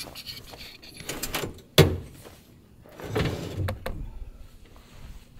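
A heavy metal basement air-conditioner unit being shifted in its compartment on an RV: metal scraping and rattling about a second in, a sharp knock just under two seconds in, then a longer scrape about three seconds in.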